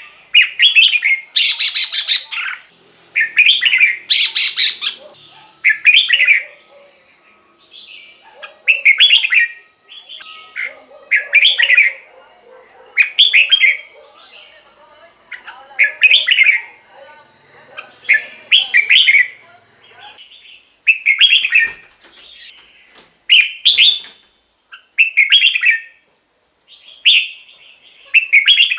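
Red-whiskered bulbul singing a string of short, loud, whistled phrases, one every second and a half to two seconds. A couple of harsher, raspier phrases come in the first few seconds.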